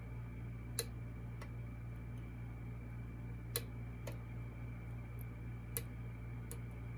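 Sharp, irregular small metallic clicks, about seven, from a lock pick working the pins of an 18-pin Goal V18 lock under tension. A steady low hum runs underneath.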